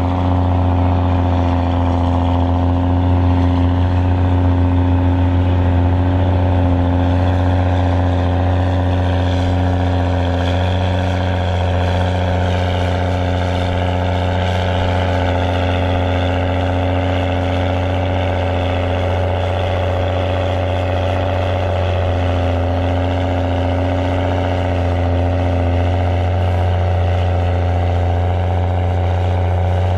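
Case IH Puma 225 tractor's six-cylinder diesel engine running hard at a steady pitch under heavy load while pulling a tractor-pulling sledge.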